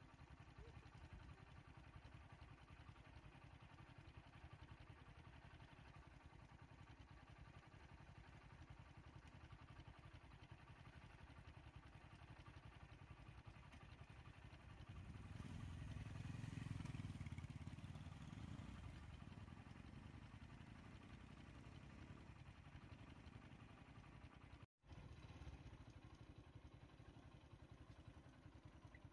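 Faint low engine rumble from motor vehicles on the road, swelling for a few seconds about halfway through. The sound cuts out for an instant near the end.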